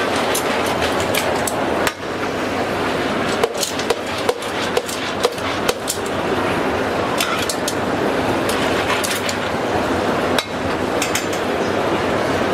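A quick irregular run of sharp knocks, about a dozen, between roughly three and six seconds in, with a few more later, over a steady noisy hiss.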